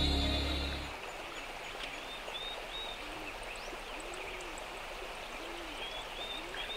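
Background music ends about a second in, giving way to an even rush of flowing water, with short bird chirps now and then.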